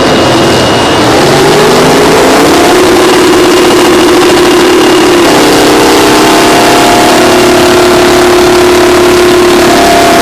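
Loud heavy two-stroke diesel engine sound of the Terex 82-80 crawler dozer's twin Detroit Diesel 6-71N engines working while pushing scrapers. The pitch rises over the first two seconds or so, then holds steady, and another engine tone joins about halfway through.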